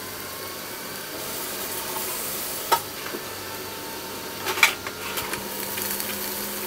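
Chopped onions sizzling in hot oil in a pressure cooker, a steady frying hiss. Two sharp knocks stand out, about a third and two-thirds of the way through, and a spatula starts stirring near the end.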